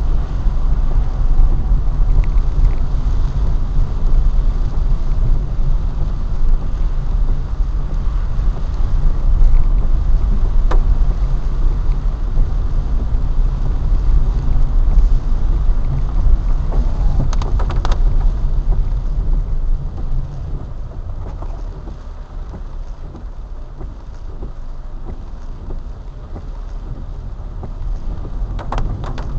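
Car driving on a rain-wet road, heard from inside the cabin: a steady low rumble of engine and road noise with tyre hiss from the wet surface. The rumble drops noticeably about two-thirds of the way through.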